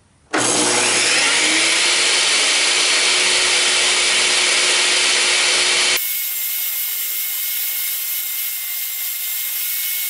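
Table saw switching on about a third of a second in, its whine rising quickly to a steady pitch, then running loudly as a cedar fence picket is fed through the blade. About six seconds in the sound changes abruptly to a thinner, higher whine with a steady whistle-like tone.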